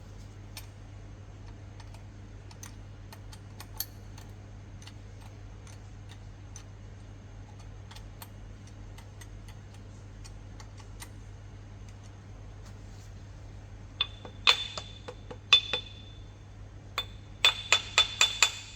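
Small hammer tapping metal against a dolly on a bent bolt, each blow ringing: a few blows about fourteen seconds in, then a quick run of about six near the end. Faint scattered clicks and a steady low hum lie underneath.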